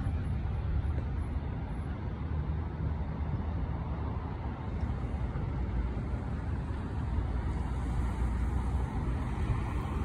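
Steady road traffic noise, a low rumble of vehicles on a busy road with no siren.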